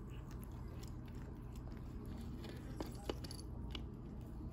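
Cats chewing shredded meat from a foam tray: faint, scattered clicks of eating, with two sharper clicks about three seconds in.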